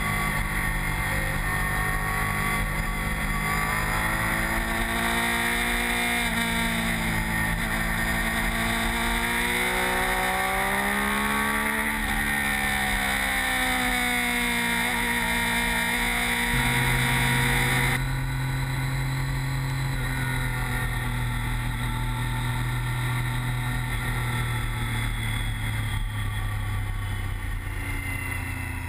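Sport motorcycle engine running at track speed, heard from an onboard camera over wind rush. Its pitch rises and falls with the throttle through the middle, then holds steady on a straight, before fading out at the very end.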